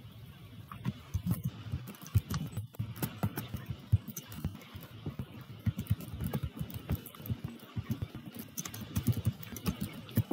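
Typing on a computer keyboard: an uneven run of quick key clicks with brief pauses between bursts.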